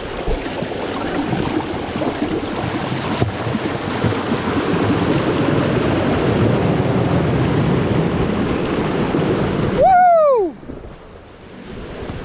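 Nitro bass boat's outboard motor running hard, its propeller churning muddy water and sand as it drives the boat off a sandbar, with a steady rush of spray and wind. About ten seconds in a man shouts a falling "Woo!" and the churning noise drops away as the boat runs free.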